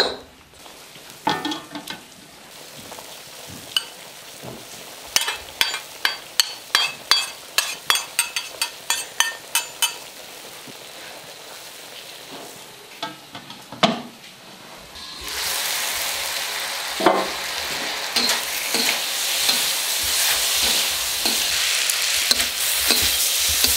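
Metal spatula knocking and scraping in an iron wok, with a quick run of sharp clacks in the middle. About two-thirds of the way in, a loud steady frying sizzle starts as the bamboo shoots and cured pork fry, with the spatula stirring through it.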